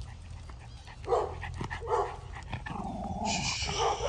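Dog barking twice, short barks about a second apart, then a longer drawn-out sound from the dog near the end.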